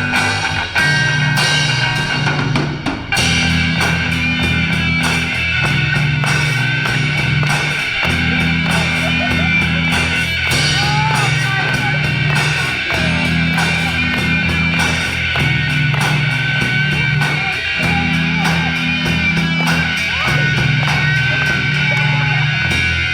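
Instrumental rock outro: drum kit, bass and electric guitar playing a steady beat, with no vocals.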